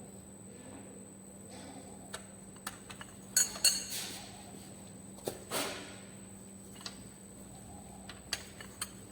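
Metal tools and engine parts clinking and clicking during hand work on an engine: a few light clicks, two sharp ringing clinks about three and a half seconds in, and another about five and a half seconds in.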